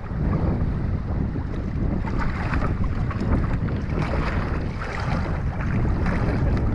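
Wind buffeting the microphone over the steady rush of a small boat running across the water.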